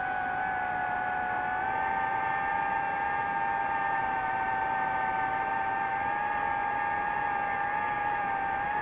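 DJI FPV drone's motors and propellers whining steadily in flight, the pitch shifting slightly as the throttle changes and stepping up a little about a second and a half in.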